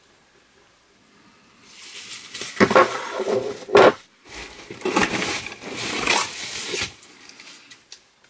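Packaging rustling and crinkling as an item is pulled out of a subscription box, starting about a second and a half in, with several loud crackles, and dying down near the end.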